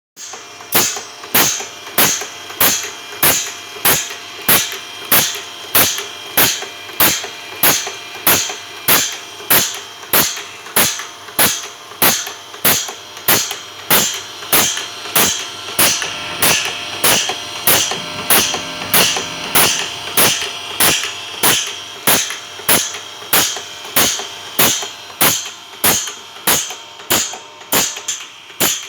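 Automatic saw blade sharpening machine cycling steadily: a sharp click or knock about three times every two seconds, one for each stroke, over a steady machine hum. A brighter hiss swells and fades in the middle.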